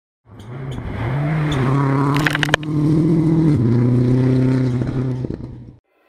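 Rally car engine running hard at high revs: the note steps up in pitch about a second and a half in, a few sharp cracks come just past two seconds, and the note drops back about three and a half seconds in before cutting off abruptly near the end.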